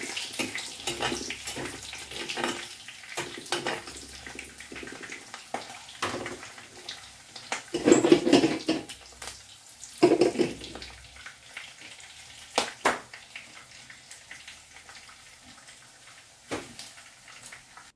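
Longganisa sausages sizzling as they fry in oil in a wok, with a steady hiss. Metal tongs click and scrape against the pan, with louder clatters about eight and ten seconds in.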